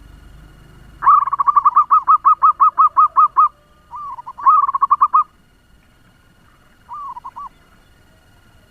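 Local zebra dove (perkutut) singing fast: a rapid string of about a dozen short hooked cooing notes, a shorter burst a moment later, and a fainter brief phrase near the end.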